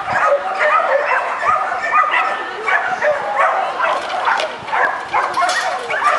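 Dog barking and yipping in a steady run of short, high calls, several a second.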